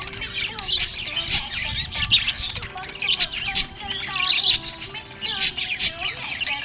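Budgies chattering and warbling without a break: a dense stream of quick, overlapping chirps, squawks and sharp clicks.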